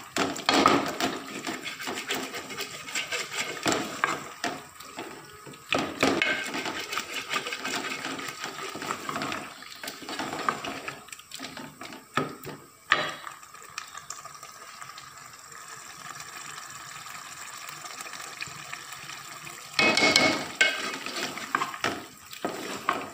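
Slotted spatula stirring and scraping wet spinach and potato curry in an aluminium pot: repeated wet scrapes and knocks against the metal, with a quieter, steadier stretch past the middle. The curry is being stir-fried (bhuna) to cook off its remaining water.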